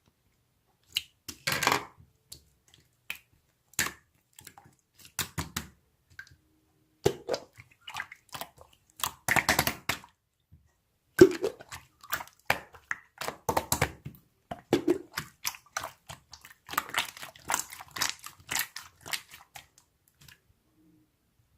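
Irregular clicks, taps and short rustles of small objects being handled, coming in bursts with pauses between them and one sharper knock about halfway through.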